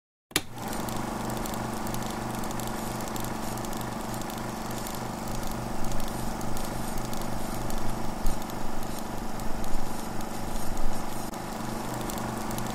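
Super 8 cine projector running: a steady mechanical whirr and hum with a regular flutter and hiss, starting abruptly just after the beginning, with louder crackles from about halfway through.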